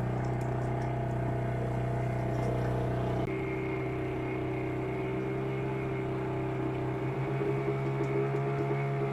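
Fishing boat's engine running steadily, a constant low drone whose tone shifts abruptly about three seconds in.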